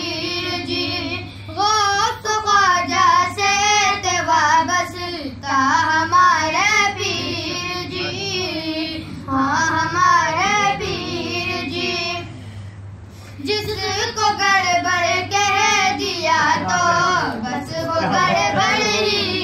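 A young voice singing a manqabat, an Urdu devotional poem in praise of a Sufi saint, unaccompanied, in long ornamented phrases with a short break about thirteen seconds in. A faint steady hum lies underneath.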